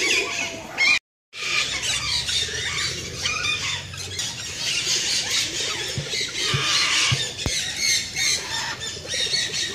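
Many birds chirping and squawking over one another, a busy overlapping chorus of calls. It is broken by a short dead gap about a second in, then a few light knocks around the middle.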